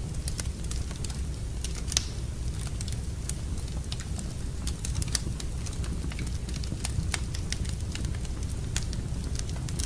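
Wood fire in a fireplace crackling, with irregular sharp pops and snaps over a steady low rumble, one louder pop about two seconds in.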